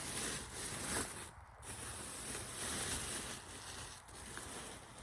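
Rustling and handling noise, a soft hissy scraping that drops out briefly about a second and a half in.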